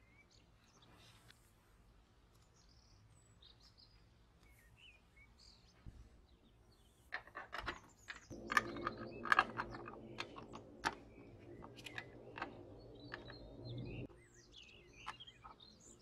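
Small metal parts of a brass table lighter clicking as they are fitted and pressed together, with a cluster of sharp clicks in the middle and a low hum under them for about six seconds that stops suddenly. Small birds chirp faintly throughout.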